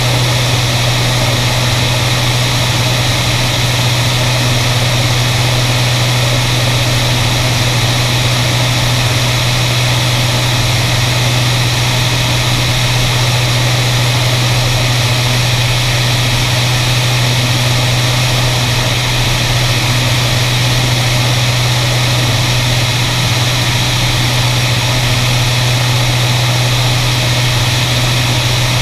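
Beriev Be-103 seaplane's twin Continental IO-360 piston engines and propellers running steadily in cruise flight, a constant low hum under heavy wind rush over an outside-mounted microphone.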